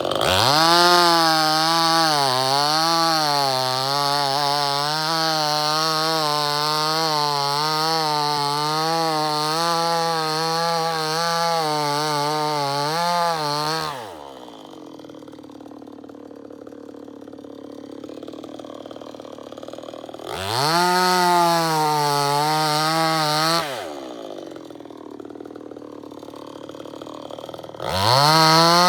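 Two-stroke chainsaw running at high revs with its pitch wavering up and down. It drops back to a quiet idle about halfway through, revs briefly, idles again, and revs up once more near the end.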